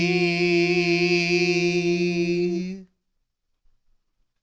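Singing voice holding one long, steady note on the word "Jesse", which cuts off suddenly about three seconds in.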